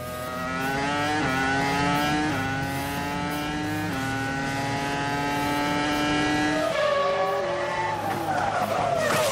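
Renault R25 Formula One car's 3.0-litre V10 heard onboard at racing speed, its pitch climbing with three quick upshifts and then holding high and steady. Near the end the sound changes to a race car heard from trackside, its pitch falling as it goes by.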